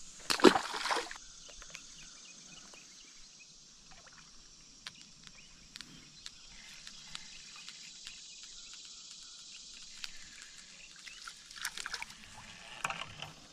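A released bluegill lands in the pond with a splash about half a second in, the loudest sound. After it, a steady high-pitched insect drone with faint scattered clicks, and a few small splashes near the end as another fish is hooked.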